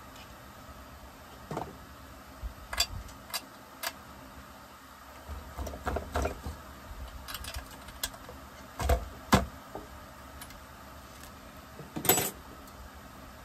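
Scattered clicks, knocks and light rattles of hand tools and plastic and metal parts being handled while a Husqvarna 357XP chainsaw is taken apart on a workbench. A few sharp knocks stand out, and there is a longer rattle near the end, over a steady low hum.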